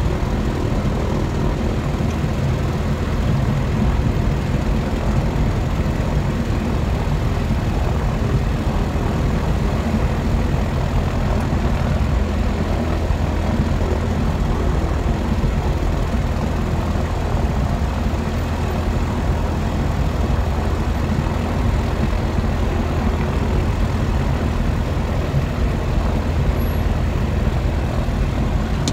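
Diamond DA40's piston engine and propeller running steadily at low taxiing power, heard from inside the cockpit as a constant low drone.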